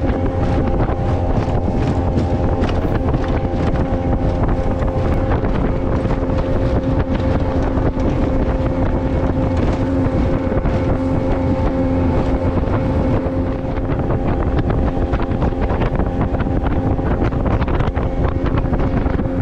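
Boat motor running at a steady speed with an unchanging pitch, the boat under way, with wind buffeting the microphone.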